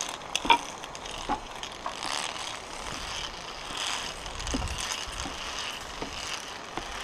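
Scattered metallic clicks and rattles of zip-line harness gear, carabiners and pulley knocking on the steel safety cable, with a dull knock of a footfall on the wooden planks of a canopy suspension bridge.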